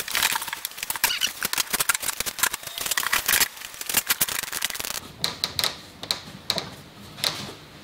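Bar clamps being adjusted and tightened on a doweled glue-up, giving a rapid run of clicks and clacks at first, then a few sparser single clicks from about five seconds in.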